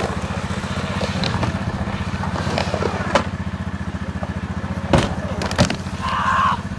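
Small utility vehicle's engine idling with a steady low putter, broken by a couple of sharp clattering knocks about five seconds in.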